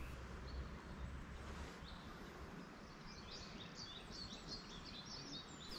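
Faint outdoor ambience with a small bird chirping: a string of short, quick, high chirps starting about two seconds in, over a low background rumble.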